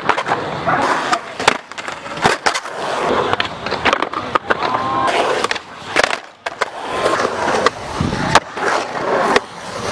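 Skateboard wheels rolling on a concrete bowl, broken by many sharp clacks and slaps as the board strikes the coping and lands.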